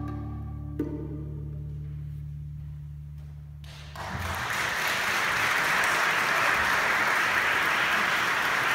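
The last low held note of a jazz trio of tenor saxophone, double bass and drums fades away, then an audience breaks into applause about four seconds in.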